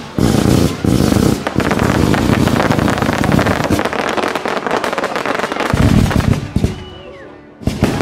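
Aerial fireworks display going off: a dense, rapid run of bangs and crackles from shells and stars bursting. It thins out near the end, with a brief whistle about seven seconds in.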